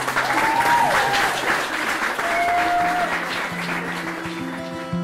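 Guests applauding, with plucked-string music underneath; the applause eases off near the end as the music comes forward.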